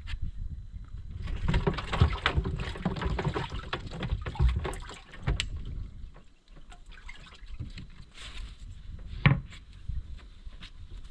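Water splashing and sloshing around a small fishing boat, with scattered clicks and knocks; the busiest stretch is in the first half, and one sharp knock comes near the end.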